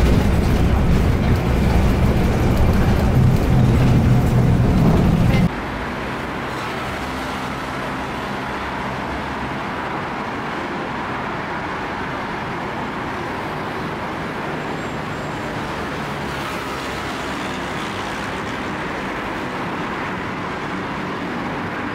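Road traffic noise: a loud low rumble for about the first five seconds, then it cuts suddenly to a quieter, even, steady hiss.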